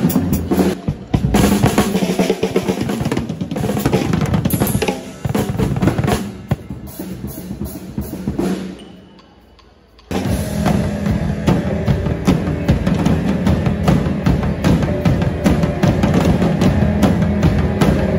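Drum kits played live by several drummers together: fast, dense beats on snare and bass drum with rolls. About eight seconds in the drumming dies away to a low level, then comes back abruptly at full volume a couple of seconds later and keeps a steady, dense beat.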